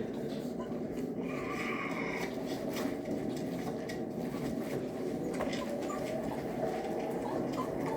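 Continuous rubbing and rustling from the puppy pen's bedding being handled, with small knocks. A puppy gives a short whimper about a second in.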